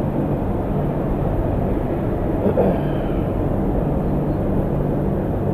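Steady mechanical rumble and low hum of running machinery, even throughout with no distinct events.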